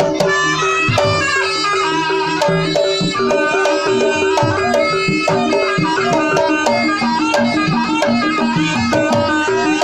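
Loud Javanese traditional music for a horse-dance troupe: a reedy wind instrument plays a wavering, bending melody over a held tone, with hand drums and struck percussion keeping a steady beat.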